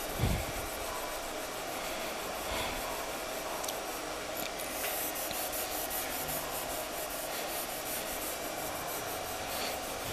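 Cotton waste loaded with polishing compound rubbed back and forth by hand over a car door frame, scrubbing at dried double-sided-tape adhesive left by a rain deflector. A short low bump comes just after the start.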